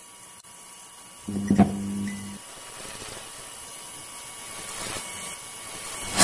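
Neon-sign logo-intro sound effects: a steady electrical hum, with a low buzz about a second in as the neon lights up, a swell of hiss near the end, and a sharp hit at the very end.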